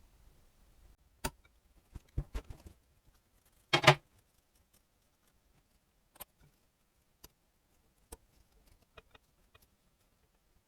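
Scattered light clicks and knocks of tools and small metal engine parts being handled during an engine strip-down, with one louder clatter about four seconds in.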